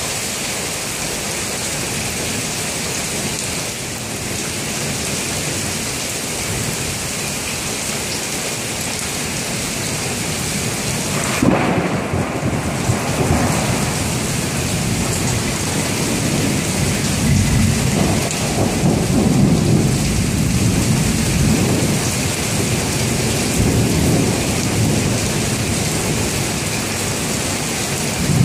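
Heavy thunderstorm rain falling steadily. About eleven seconds in, a thunderclap breaks suddenly and rolls into a long low rumble that swells in waves over the rain.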